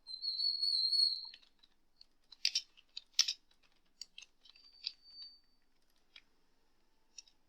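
A high, steady whistle-like tone for about a second at the start, then scattered computer keyboard keystrokes clicking as code is typed, with a faint brief high tone about halfway through.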